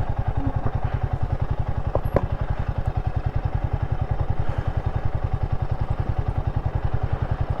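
Royal Enfield Himalayan 450's single-cylinder engine idling with an even, steady low beat. A couple of faint clicks about two seconds in.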